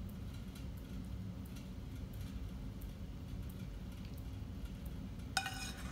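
Faint soft clicks and scraping of a silicone spatula against a ceramic bowl as sticky sauced fish pieces are spooned onto a plate, over a steady low hum. A brief ringing sound comes near the end.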